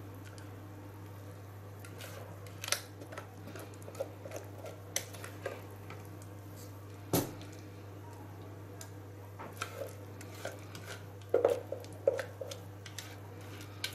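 A spatula scrapes and taps against a plastic bowl as thick, wet batter is poured out into a springform cake pan. Scattered soft clicks and knocks sound over a steady low hum; the sharpest knock comes about halfway through, and a cluster of knocks comes near the end.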